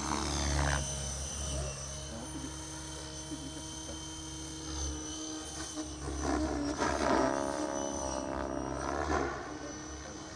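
Radio-controlled model helicopter flying, with a steady whine from its motor and rotor blades. From about six to nine seconds in it grows louder and its pitch bends up and down.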